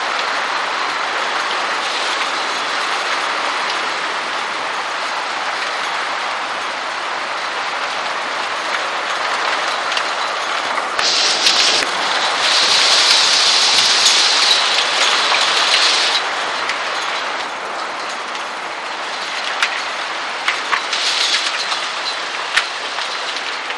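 Heavy hail pelting down: a dense, steady rattle of hailstones striking surfaces, louder and hissier for about five seconds midway, with single sharp hailstone impacts standing out near the end.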